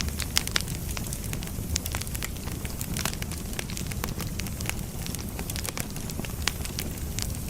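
Firewood burning, crackling with irregular sharp pops and snaps over a steady low rumble of the fire.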